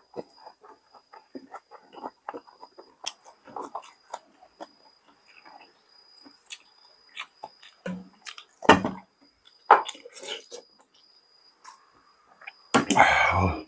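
Close-up chewing and eating sounds: irregular wet mouth clicks and smacks, with a few louder ones about two-thirds of the way through and a louder, longer burst near the end.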